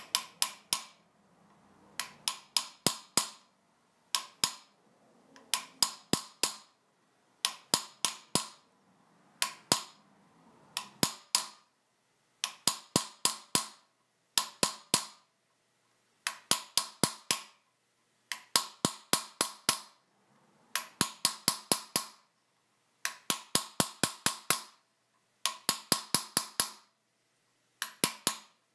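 Small hammer tapping a chasing tool along a copper vase body on a steel stake, in quick bursts of three to six ringing taps about every one and a half to two seconds.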